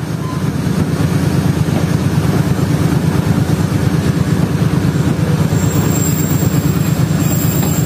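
Diesel locomotive engine running loud and steady as a fast-pulsing rumble, heard up close from on board the locomotive, with the train rolling along the track.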